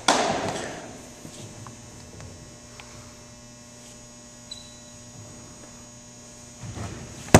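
A baseball smacks into a leather glove, the pop echoing through a gymnasium for about a second. Then a steady electrical hum with a few faint taps for several seconds, until the next pitch pops into the catcher's mitt at the very end.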